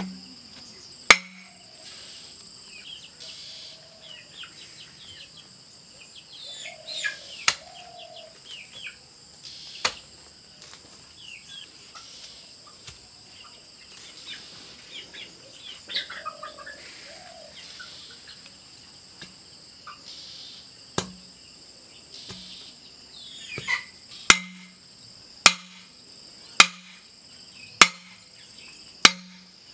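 Square steel post being hammered into the ground with the metal head of a hoe. A single ringing clank comes about a second in, then five clanks about a second apart near the end. A steady high-pitched drone of insects and scattered bird chirps fill the gaps.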